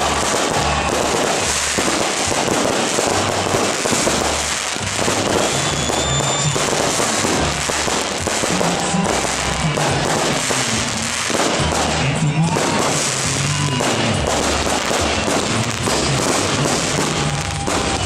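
Fireworks display: a dense run of crackling and popping bursts with music playing over it, its bass notes changing every second or so.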